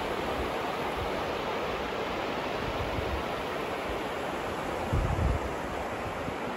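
Steady rushing noise of flowing river water. About five seconds in there is a brief low rumble on the microphone, like a gust of wind.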